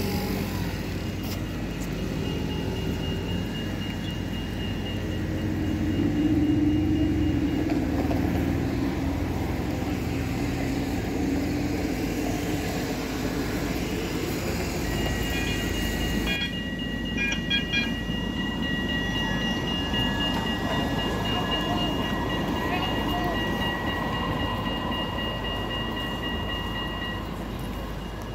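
City trams running on street tracks: a low rumble that swells several seconds in as a tram passes. Steady high whining tones and a few short ringing pulses sound over street noise and passing voices.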